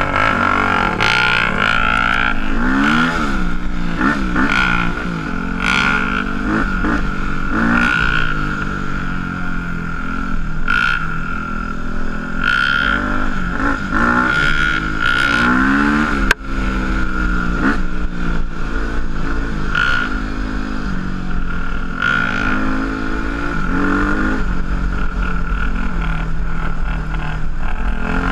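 Single-cylinder dual-sport motorcycle engine under way, its revs climbing and falling again and again as the rider works the throttle. There is one sharp click about sixteen seconds in.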